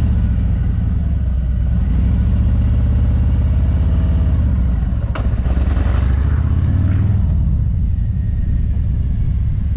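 Motorcycle engine running at a steady low note just after being restarted, with a short click about five seconds in.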